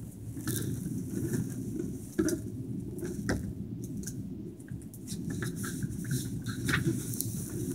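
Rustling and scattered clicks and taps of small objects being handled close to the microphone, over a steady low rumble.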